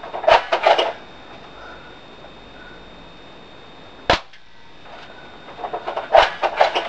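Airsoft G36C replica rifle firing three sharp single shots, about a second in, near the middle and near the end. The first and last shots come amid quick clusters of lighter clicks and rattles.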